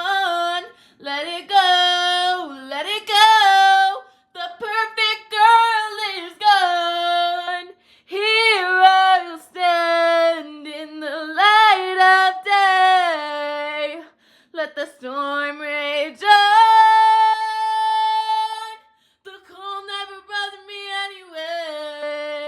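A female voice singing alone, with no accompaniment. The melody comes in short phrases with brief pauses between them, and there is one long held note about three-quarters of the way through.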